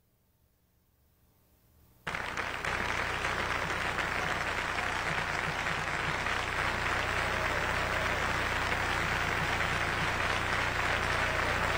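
Near silence, then an audience breaks into applause about two seconds in, and the clapping goes on steadily.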